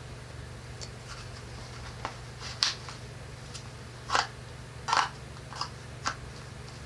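A clip-on belt holster holding a small derringer being worked onto a trouser belt: a string of short scrapes and clicks, the loudest about two and a half, four and five seconds in, over a steady low hum.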